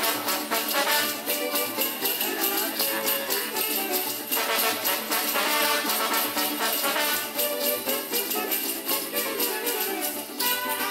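Brass band playing lively dance music, with clusters of small metal bells on the dancers' legs jingling in time with their steps.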